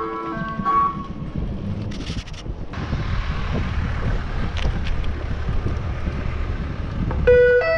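Wind buffeting the microphone, a low rumble, between two bursts of ice cream van chimes: the tune breaks off within the first second and starts again near the end.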